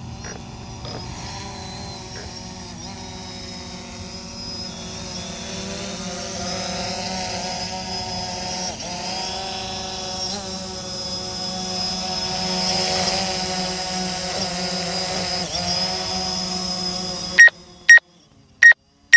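Small camera drone's propeller motors running with a steady multi-tone whine that grows louder as it flies low, then stops abruptly near the end, followed by several short, loud beeps.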